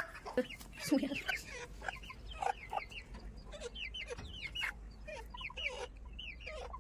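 Several chickens clucking and calling, many short calls that drop in pitch overlapping one another.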